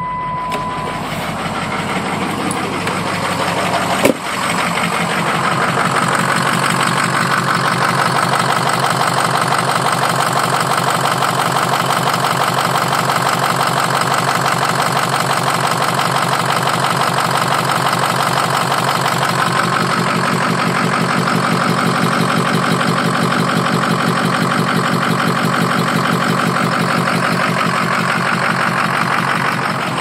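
Ford 6.0L Power Stroke V8 turbo-diesel running at idle with an even, rhythmic beat, which the owner suspects comes from a bad lifter or stuck valve on cylinder 8. A short beep sounds at the start, and a click comes about four seconds in, after which the engine sounds much louder and closer.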